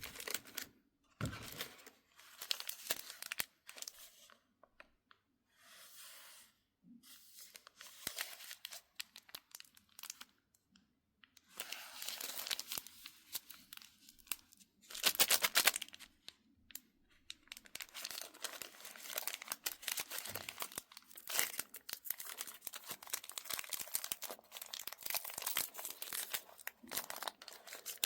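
Plastic wrappers of mini chocolate bars being torn open and crinkled. The crackling comes in repeated bursts with short pauses, getting denser and more continuous in the second half.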